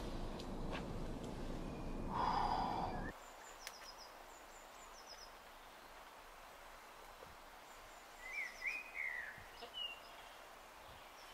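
A climber's short grunt of effort over a steady rushing noise, which cuts off suddenly about three seconds in. Then a quiet woodland background with birds singing: a few quick high chirps, and a warbling call later on.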